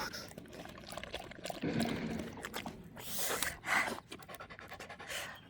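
A dog lapping water, a run of quick irregular wet laps and splashes.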